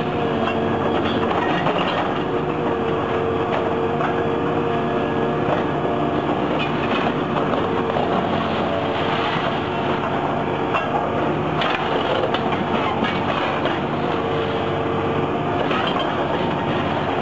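Hydraulic excavator's diesel engine running at a steady pitch under load, with a few sharp cracks and clinks as the jaws of an MCP fixed pulveriser crush reinforced concrete.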